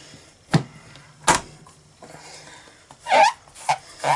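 The clear stamp plate of a stamping tool knocks twice against the base, then a damp chamois rubs and wipes ink off the plastic plate in a few short strokes near the end.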